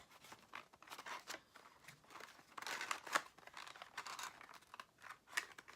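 Hands opening the packaging of a small camera carrying case: a run of short crinkling, scraping and tearing noises, thickest and loudest about three seconds in.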